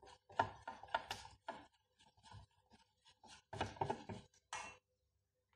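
A spoon stirring thick cornstarch paste in a stainless steel bowl: irregular scraping and clicking against the bowl, busiest about three and a half to four seconds in, then it stops.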